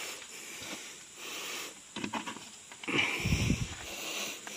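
Handling noises as a plastic bottle of fuel mix is picked up: small clicks, scuffs and rustles, with a muffled low rumble about three seconds in.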